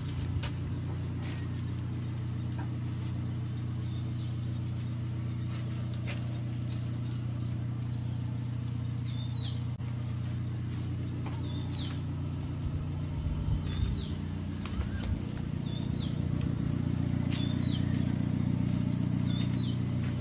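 Ford 6600 tractor's three-cylinder diesel engine running steadily at idle, getting a little louder over the last few seconds. Birds chirp now and then in the second half.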